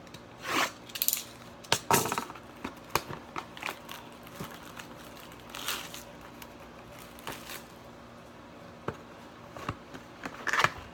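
Plastic shrink-wrap and a cardboard trading-card hobby box being torn open and handled: scattered crinkling and crackling with small clicks and taps, loudest near the start and again near the end.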